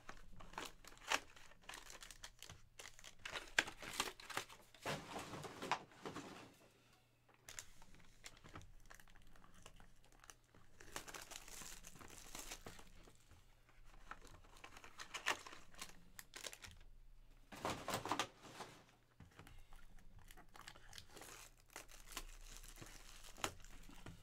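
Clear plastic shrink-wrap being torn and crumpled off trading card boxes. It crinkles in bursts every few seconds, with sharp clicks from the cardboard boxes being handled.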